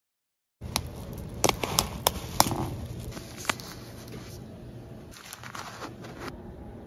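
Paper tea packaging crinkling and rustling as it is handled, starting about half a second in, with a handful of sharp crackles over the first few seconds and then softer rustling.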